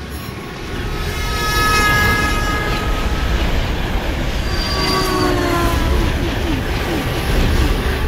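Train racing through a tunnel: a deep rumble with high, screeching wheel squeals, some squeals falling in pitch about five seconds in.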